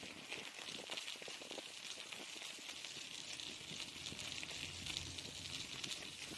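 Bicycle tyres rolling over packed snow and ice: a steady crackling crunch with a hiss, and a faint low rumble rising in the second half.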